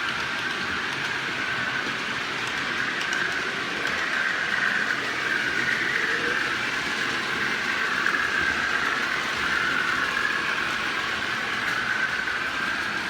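OO gauge model train running along the track: a steady whine from its small motor together with wheel and rail noise, growing a little louder in the middle as it comes closer, then easing off.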